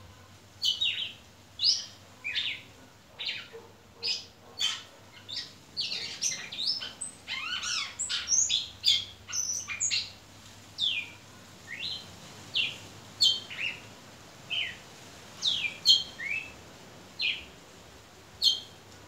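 Caged red-cowled cardinal (galo-de-campina) singing a string of short, clear whistled notes, many sliding down in pitch, about one or two a second. The notes crowd into a quick run about six to ten seconds in.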